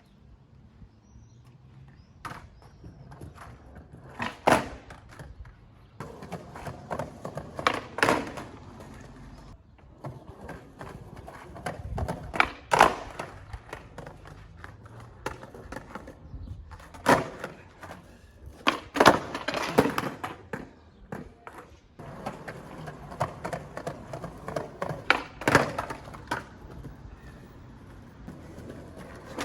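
Skate wheels rolling over hard ground in a steady rumble, broken every few seconds by sharp clacks and thuds of the board or skates striking and landing, about eight in all.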